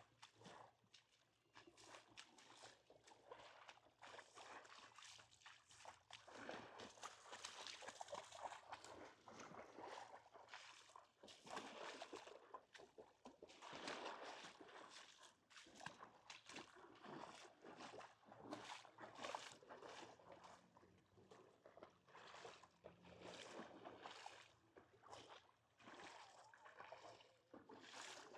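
Faint small waves washing and sloshing on the shore, rising and falling every few seconds, with soft footsteps.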